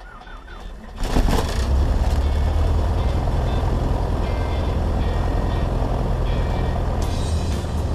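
Light aircraft's piston engine being started: the starter cranks it over briefly, the engine catches about a second in, and it then runs steadily and loudly, heard from inside the cockpit.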